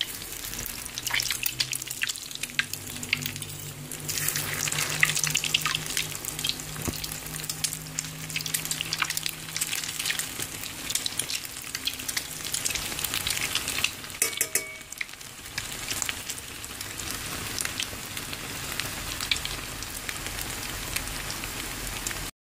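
Egg-and-milk-soaked bread slices frying in hot oil in a pan: a steady crackling sizzle full of small spattering pops. The sound breaks off for a moment near the end.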